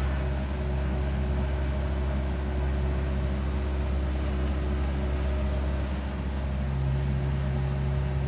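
Mini excavator's diesel engine running steadily under working load, its note growing stronger near the end.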